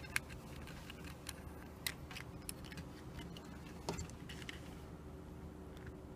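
Scattered light clicks and taps as the small plastic parts and gears of an alarm clock are handled during disassembly, at irregular intervals over a low steady hum.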